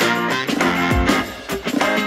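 Background music: a guitar-led track with bass notes.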